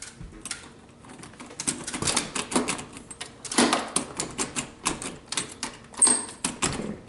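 Rapid, irregular knocking and rapping on a wooden house door, in quick runs of sharp raps.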